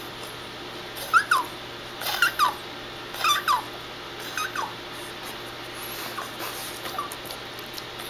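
A Shih Tzu whimpering: a series of short, high whines, each falling in pitch, coming in clusters about a second apart, then two fainter ones near the end.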